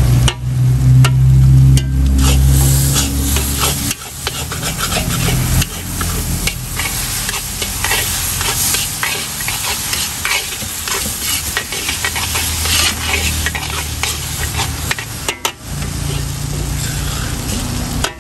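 Metal ladle scraping and clanking against a blackened iron wok as noodles are stir-fried over a charcoal stove, with the hiss of sizzling throughout. A low hum lies under it for the first few seconds and again near the end.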